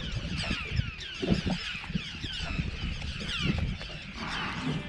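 A flock of birds calling over the marsh: many short, downward-sliding calls overlapping one another, over a steady low rumble with a few soft knocks about a second in.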